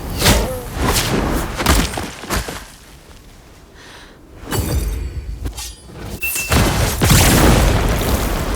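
Layered cinematic sound effects: a quick run of sharp hits and whooshes, a quieter lull, then more hits building into a loud, rumbling impact about seven seconds in that carries on to the end.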